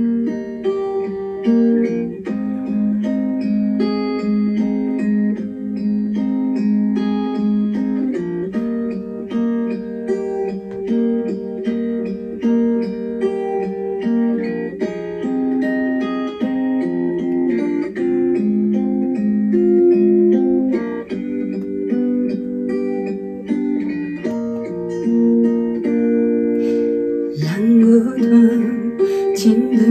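Instrumental interlude of a slow Taiwanese Hokkien ballad's backing track, with sustained chords and plucked notes. Near the end a woman's solo singing voice comes back in over the music.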